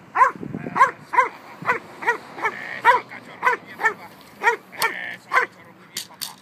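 A dog barking rapidly and repeatedly, about two to three barks a second, while held on a leash facing a decoy in protection training. Two sharp cracks sound near the end.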